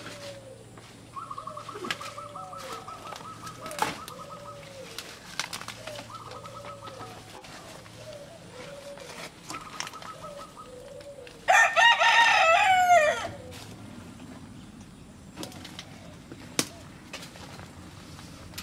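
A rooster crows once near the middle, loud and about a second and a half long. Around it, softer short calls repeat about once a second and a high buzzing trill comes and goes.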